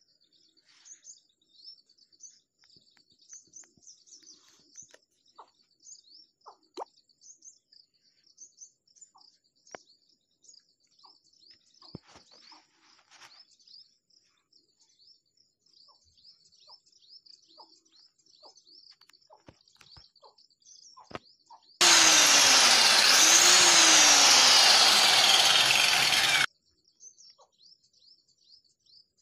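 Birds chirping, with scattered light taps and knocks. About three-quarters of the way in, a loud power tool runs for about four seconds, its pitch rising and then falling, and cuts off suddenly.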